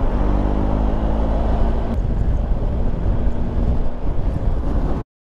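Motorcycle engine running at steady road speed under heavy wind noise on the bike-mounted microphone. The sound cuts off abruptly about five seconds in.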